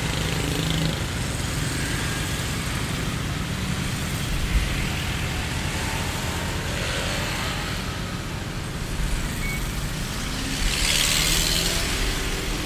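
Busy street traffic: a steady low rumble of road vehicles, with a short thump about four and a half seconds in and a louder hiss of a vehicle passing close near the end.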